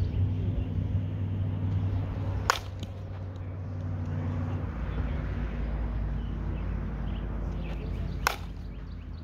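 A Dudley slowpitch softball bat striking a softball twice, two sharp cracks about six seconds apart.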